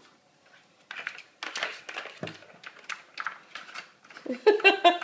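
A ball rattling and rolling in a plastic cat track toy as a kitten bats at it, with irregular clicks and knocks. Near the end comes a louder pulsing, voice-like sound.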